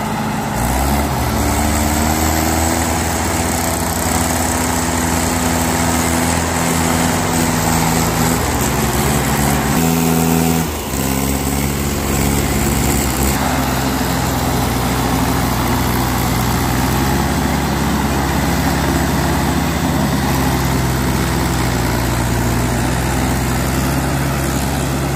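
Diesel engines of two Mahindra tractors, one a Mahindra 415 DI, running hard under load as one tractor tows the other through mud. The engine pitch steps up and down a few times, with a brief drop about ten seconds in.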